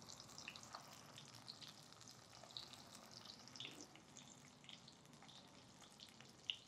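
Faint crackling sizzle of stuffed small brinjals frying in oil in a stainless steel kadai, with small scattered pops.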